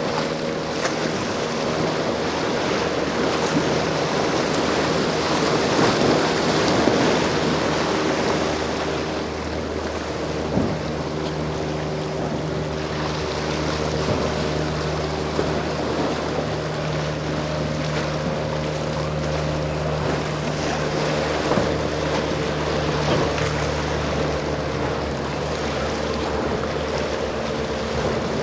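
Motorboat engines running steadily, with waves crashing and wind buffeting the microphone.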